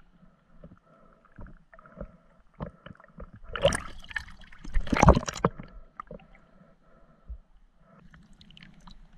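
Water sloshing and splashing around a camera held at the surface of a choppy lake, partly under the water, with scattered small knocks and two louder splashes about four and five seconds in.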